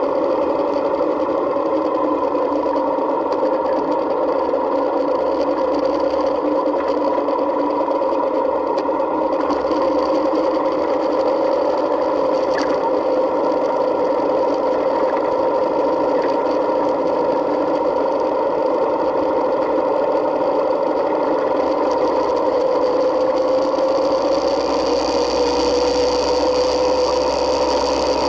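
Yamaha Midnight Star 1900's air-cooled V-twin running steadily under way, heard through a camera mounted on the motorcycle. Its note rises slightly near the end.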